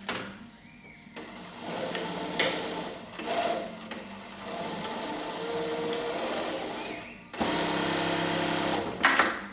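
Brother sewing machine stitching: its motor and needle mechanism run steadily, step up louder with a changed tone about two-thirds through, then stop with a sharp click near the end.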